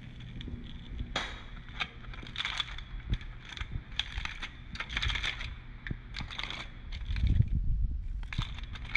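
Aluminium foil crinkling and crackling in irregular bursts as it is peeled back by hand from a baked dish.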